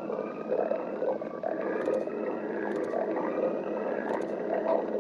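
A person's stomach growling: continuous gurgling and rumbling, with drawn-out gurgles that slide up and down in pitch and a few short crackles.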